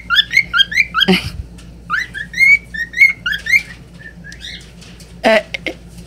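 Cockatiel singing: a fast run of short rising whistled notes, about four to five a second, breaking off about a second in, then a second run of whistles that thins out into a few scattered notes.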